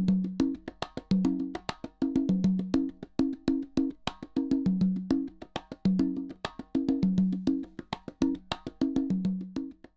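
Percussion test track: fast, dry wood-block-like clicks over a repeating figure of short, low pitched drum notes, used as a surround speaker level-check signal.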